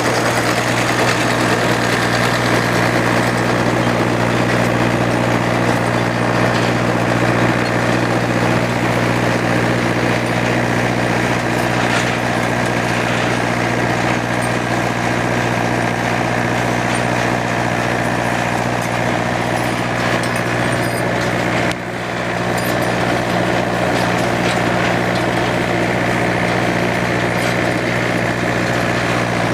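An engine running steadily at a constant speed, with a brief dip in loudness about three-quarters of the way through.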